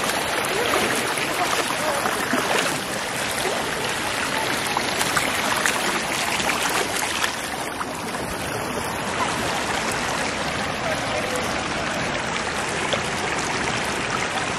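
Shallow stream water running steadily over rock.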